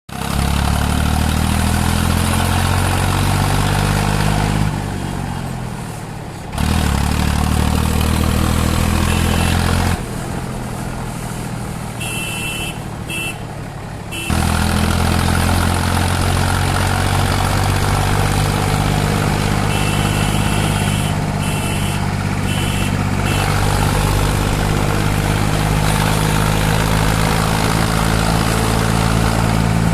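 Farmtrac tractor's diesel engine running through a newly fitted silencer. It revs up at first, drops back quieter twice, then runs steadily at raised revs.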